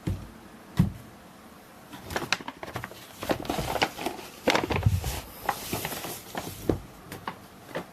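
A smartphone's retail box and packaging being handled: two dull thumps near the start, then a run of clicks and taps, with rustling through the middle.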